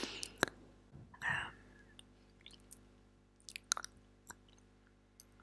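Soft, close-miked mouth sounds into a small clip-on microphone held at the lips: a few scattered wet clicks and a short breathy puff about a second in.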